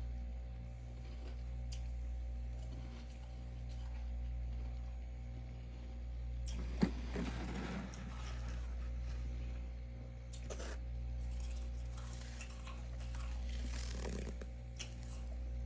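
Hand scraping and crunching thick freezer frost in two spells, with a sharp click as it begins about seven seconds in, over a steady low hum that swells and fades slowly.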